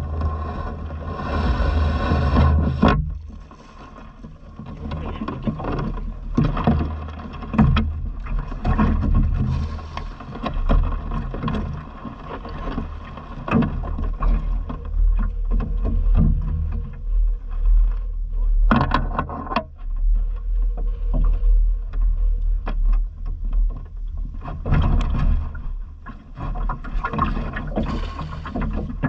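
Low rumble of wind and water around a small boat, with scattered knocks and rustles as a cast net is gathered and swung. Near the end the cast net is thrown and lands on the water with a splash.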